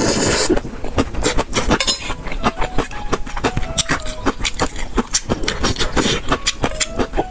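Close-up eating of rice noodles in soup: a loud slurp right at the start, then wet chewing and slurping with many small mouth clicks. Chopsticks clink briefly against the metal bowl now and then.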